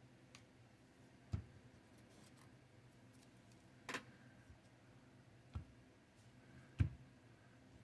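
Four short, separate knocks and taps on a tabletop as a glue bottle and the small wooden model are handled and set down, the last knock the loudest, over a faint steady room hum.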